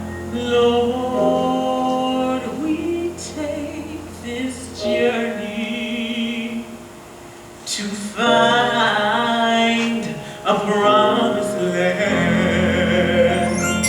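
Music: a voice singing long held notes with vibrato over a low sustained accompaniment. A rising sweep comes near the end.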